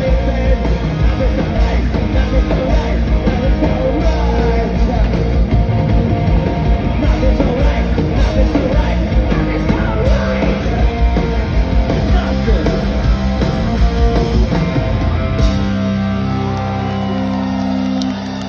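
Live rock band playing loud through the PA, with a singer shouting into the microphone over drums and distorted guitars. About three-quarters of the way through the drumming stops and a held chord rings on.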